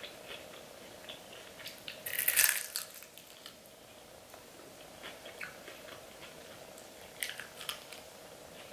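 Crunchy bite into the crispy skin of a fried chicken wing about two seconds in, followed by quieter chewing with a few scattered mouth clicks.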